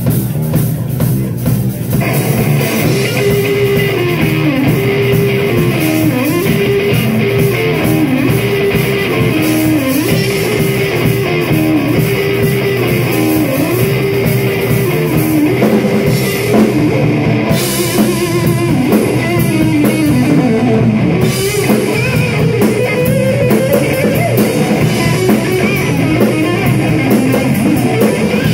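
Live blues-psychedelic rock trio playing loudly, electric guitar over a drum kit. A guitar line repeats the same short figure about every two seconds, then climbs higher near the end.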